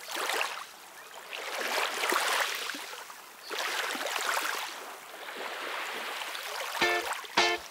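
Water sloshing in slow swells, rising and ebbing about four times, like small waves or oar strokes on a lake. Music notes come in near the end.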